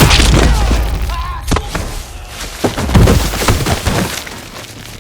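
Fight-scene sound effects: a heavy hit at the start, a sharp crack about a second and a half in, then a loud cluster of impacts with a deep boom around three seconds in, dying away near the end.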